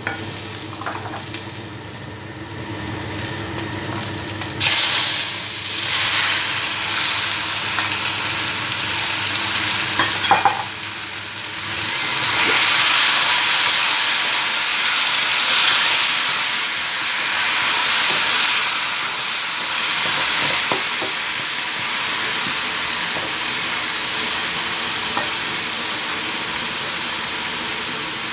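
Sliced shallots, garlic and ginger sizzling in oil in a pan, stirred with a wooden spatula. About five seconds in, raw chicken pieces go into the hot pan and the sizzle jumps much louder, carrying on steadily as the chicken is stirred.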